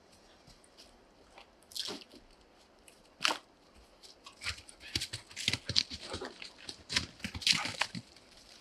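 Footsteps crunching and rustling through dry fallen leaves, a person's steps and a dog's running, irregular and growing louder and denser in the second half as they come closer.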